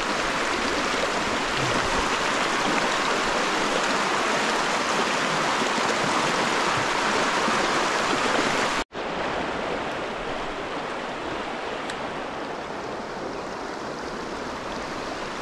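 River water running steadily over a current, an even rushing hiss. It cuts out for an instant about nine seconds in, then carries on a little softer.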